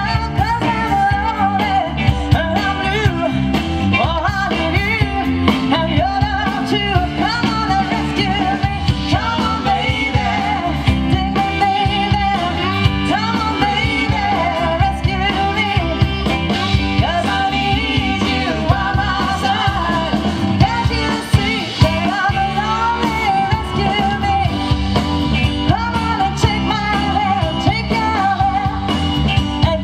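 Live soul band: a woman sings lead into a microphone over electric guitar and a steady beat.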